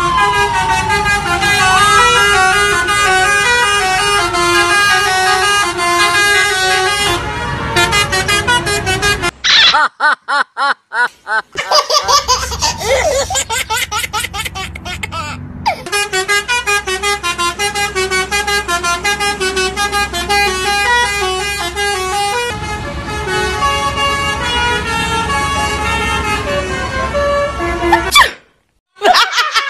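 Multi-tone 'telolet' bus horn playing a quick melody of stepped notes, with a siren wail that falls and rises over the first few seconds. The sound stutters in rapid on-off cuts about a third of the way in and drops out briefly near the end.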